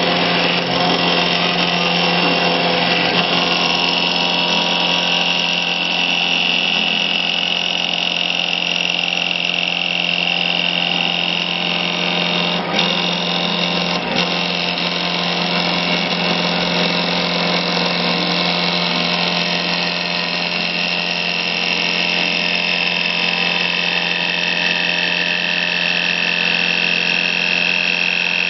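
Double-axis wood turning lathe running and cutting: a steady motor hum and high whine over the noisy shaving of the cutter against the spinning wooden spindle, with two brief clicks near the middle.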